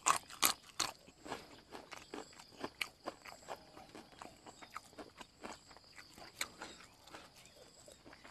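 Close-up chewing of a mouthful of fish laab and raw greens: a few loud crisp crunches in the first second, then softer irregular chewing clicks.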